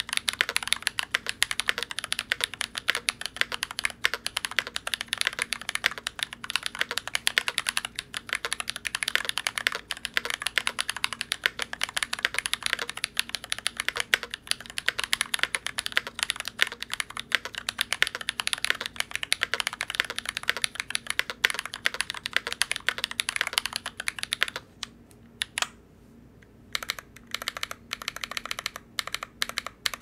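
Fast, continuous typing on a GMMK Pro mechanical keyboard with lubed and filmed Glorious Panda tactile switches in an aluminium plate, a dense run of key clacks. About 25 seconds in it thins to a few slower single key presses.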